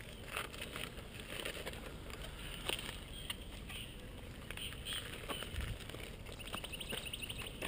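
Faint outdoor background noise with scattered soft scuffs and clicks; no engine is clearly heard.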